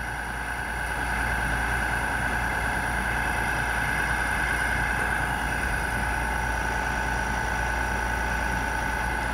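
Small single-winding refrigerator fan motor, built without a capacitor, running steadily with its blade spinning: a constant hum with a steady high whine.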